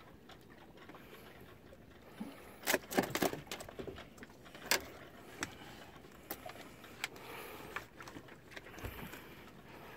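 Scattered light knocks and clicks of a kingfish and fishing rod being handled in a small dinghy, with a cluster of sharp clicks about three seconds in and single ones later.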